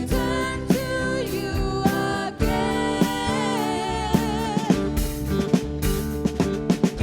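Church worship band playing: a voice sings a melody with wavering held notes over a drum kit and sustained backing instruments. A quick run of drum hits comes in the second half.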